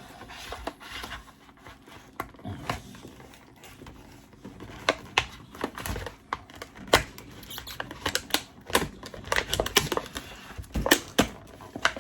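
Multi-tool packaging being opened by hand: irregular clicks, taps and rustles, with bunches of sharper clicks about five, seven, nine and eleven seconds in.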